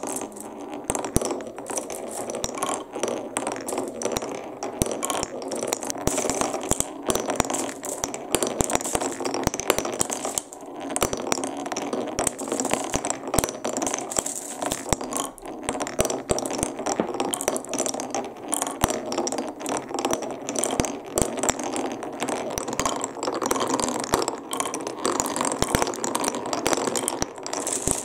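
Many balls rolling and clattering down a wooden HABA marble run, a dense, continuous rattle of small wooden clicks and knocks.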